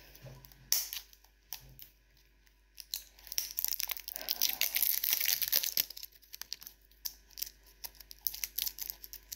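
Packaging being crinkled and torn open by hand: a few scattered crackles, then several seconds of dense crackling in the middle, thinning out again near the end.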